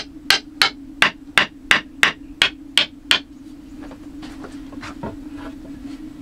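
Hammering: an even run of about ten sharp blows, roughly three a second, that stops about three seconds in, followed by a few fainter knocks. A steady hum runs underneath.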